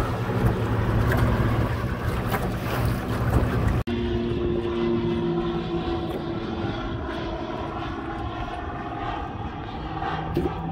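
Boat outboard motor running steadily under way. About four seconds in it is cut off abruptly and gives way to a different, slightly quieter steady engine drone with one strong held tone.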